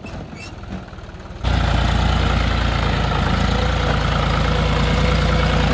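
John Deere 5039D tractor's three-cylinder diesel engine running under heavy load while pulling a fully loaded soil trolley. It is faint at first, then about a second and a half in it becomes suddenly loud and steady.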